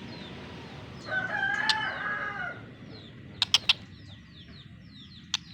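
A rooster crowing once, a drawn-out call of about a second and a half starting about a second in. It is followed by a few sharp clicks and faint, high, falling chirps of small birds.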